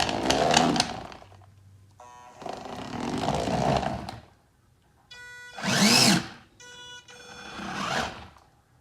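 Small 12-volt DC wheel motors run through an L298N motor driver, spun up and back down in four short bursts, pitch rising and falling within each. A steady electrical whine from the driven motors sounds between the bursts.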